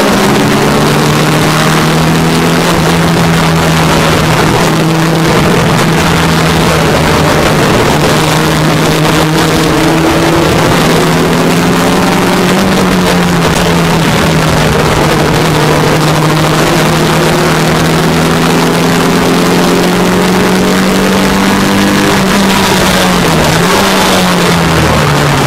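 Vintage sports racing car's engine running hard at high revs, heard from inside the open cockpit with a loud rush of noise over it. The engine note holds steady, dipping and picking back up briefly about halfway through and again near the end.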